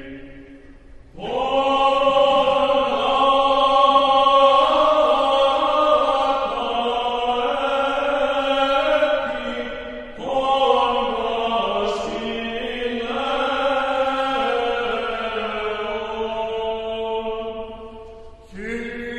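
Soundtrack music of slow chanting voices holding long notes, in phrases that each start after a short break: about a second in, about halfway through, and just before the end.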